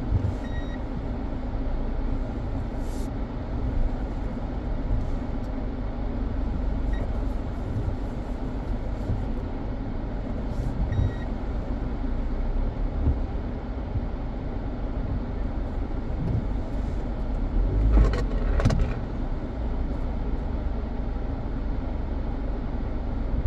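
A car driving along a road: steady engine and tyre noise, with a couple of sharp thumps about three-quarters of the way through.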